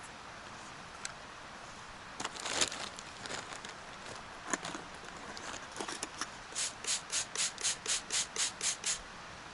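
Rubbing or scraping strokes on a surface: a few irregular scrapes, then a steady run of about eleven quick strokes, around four a second, near the end.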